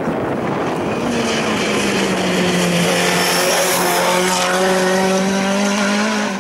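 Renault 5 hill-climb race car's engine held at high revs as the car comes up the road and passes. The engine note rises about a second in, then holds nearly steady.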